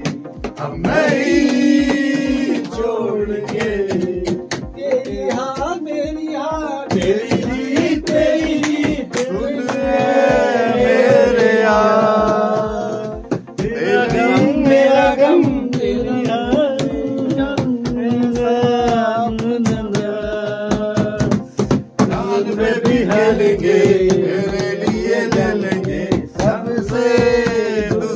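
Male voices singing a Hindi film song together, one man leading, over a steady percussive beat.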